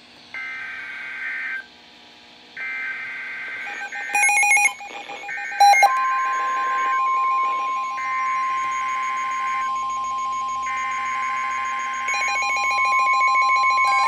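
NOAA Weather Radio alert signalling over the radios' speakers: buzzy SAME digital data bursts sent three times, about a second each, then a second set of bursts from another transmitter overlapping the steady 1050 Hz warning alarm tone, which starts about six seconds in. The receivers' own alert beeps pulse rapidly under it, marking a new warning coming in.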